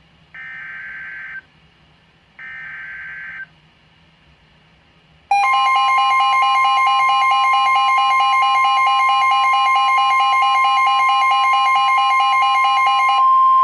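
NOAA Weather Radio alert: the last two short bursts of the SAME digital header, then about five seconds in a loud, steady electronic alert tone starts and holds, the alarm that signals a new warning, here a severe thunderstorm warning.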